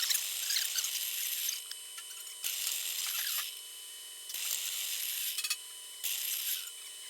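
Power drill boring holes through steel sheet in repeated short bursts, each about a second long with brief pauses between: drilling the holes for plug welds.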